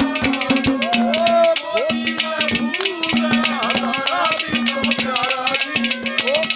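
Instrumental interlude of Haryanvi folk ragni: a harmonium holds a steady drone and plays the tune over fast, dense dholak hand-drum strokes with a jingling rattle.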